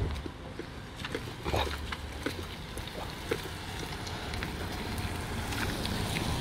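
Wind rumbling on a phone microphone over a steady hiss of outdoor noise, with a few light clicks in the first half; the hiss slowly grows louder toward the end.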